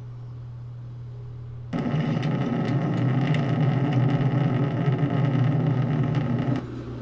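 Rocket motor of the missile carrying the Avangard hypersonic glider, heard in launch footage as a loud, harsh, distorted rushing noise. It comes in suddenly about two seconds in and cuts off about a second before the end. A low steady hum lies under the opening seconds.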